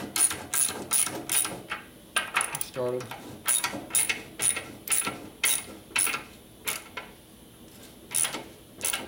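Hand socket ratchet clicking in quick strokes, about two to three clicks a second, as a swing arm pivot bolt is run into its threads, with a pause before a last few clicks near the end.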